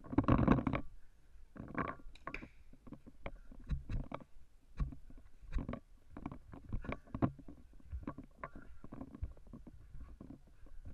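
Footsteps on asphalt with the thuds, rattle and rubbing of a paintball marker and gear carried by a walking player, heard from a head-mounted camera. A louder rustling knock comes right at the start.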